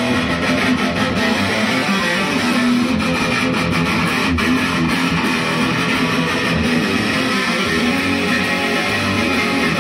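Electric guitar music played steadily and loudly without pause.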